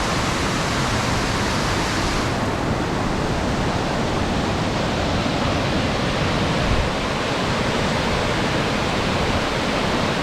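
Waterfall on a mountain stream, a steady rush of falling water. About two seconds in, the hiss turns duller.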